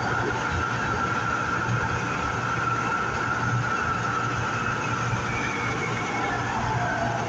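Light rail train running at speed through a tunnel, heard from inside the passenger car: a steady rumble of wheels on rail with a low hum and a high whine that fades near the end.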